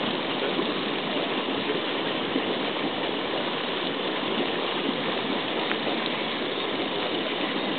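Hot geyser spouting water up between rocks: a steady rushing, splashing gush that keeps on without pause.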